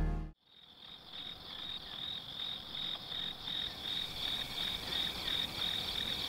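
Crickets chirping at night, a high rhythmic chirp of about three pulses a second that fades in just after background music cuts off.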